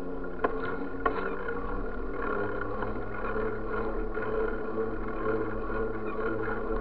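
Steady drone and rattle of a bicycle rolling along an asphalt street, heard through a camera mounted low on the bike, with two sharp knocks about half a second and a second in.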